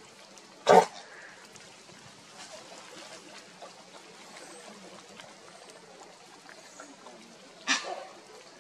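Dogs lapping rainwater from a shallow puddle, with faint water noise and two short, loud sounds, one about a second in and one near the end.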